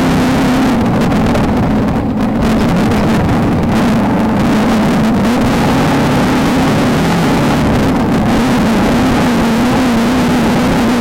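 Off-road desert race car engine running hard at a steady high speed, its pitch wavering slightly up and down.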